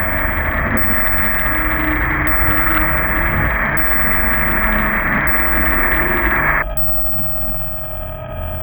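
Synthesized horror sound design: a loud steady hiss layered over a deep rumble with faint wavering tones, the hiss cutting off suddenly about six and a half seconds in, leaving the low drone.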